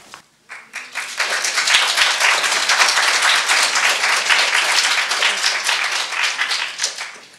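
Audience applauding: dense clapping that builds about a second in and dies away near the end.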